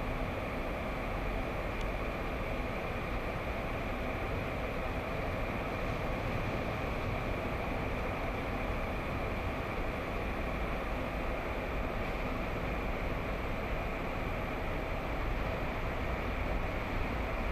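Steady street traffic noise: an even low rumble with a hiss over it, with no distinct events.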